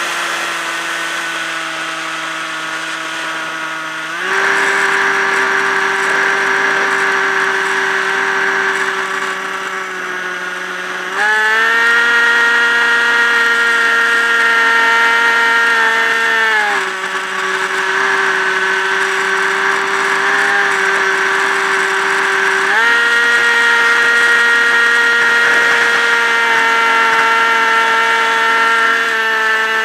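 Electric motor and pusher propeller of a Multiplex EasyStar RC plane whining steadily in flight. The pitch steps up about four seconds in and again about eleven seconds in, drops back about halfway through, and rises again about two-thirds of the way through, following the throttle.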